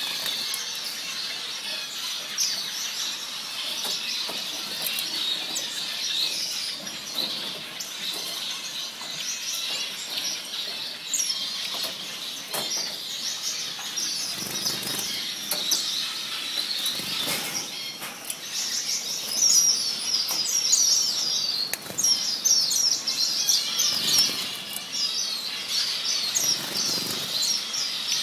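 Cut-throat finches chirping in a cage: many quick, high chirps that grow busier and louder in the second half.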